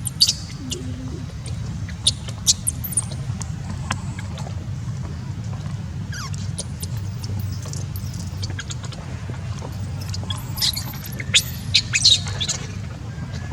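Baby monkey's short, very high-pitched squeaking cries, scattered and coming in clusters, loudest near the end, over a steady low hum.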